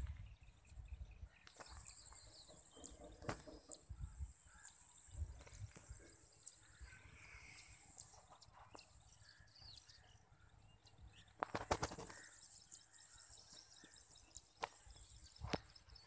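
Quiet rural field ambience: faint scattered bird chirps over a steady high insect drone, with low wind rumble on the microphone. A brief clatter of knocks comes about three-quarters of the way through, and single clicks near the end.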